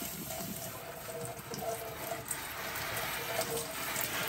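Kitchen faucet spray head running steadily, showering water over a potted houseplant's leaves and into a stainless steel sink: a steady hiss of spray while the plant is watered from above.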